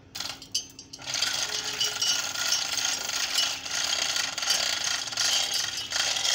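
Manual chain hoist ratcheting and its chains rattling as the hand chain is pulled, moving a hanging Toyota 3B diesel engine. A few clicks come first, then a fast, continuous clatter starts about a second in and stops near the end.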